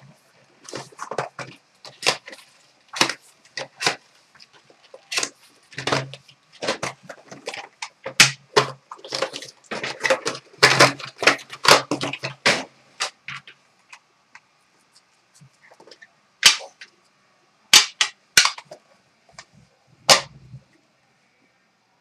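Trading-card box being torn open by hand: a rapid, irregular run of sharp cracks and tearing cardboard, thinning to a few separate snaps after about thirteen seconds.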